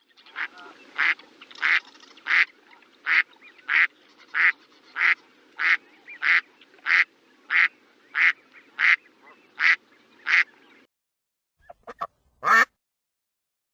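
Duck quacking in a steady, even series, about three quacks every two seconds, over a faint low hum. After a short pause, a few quick calls end in one loud call near the end.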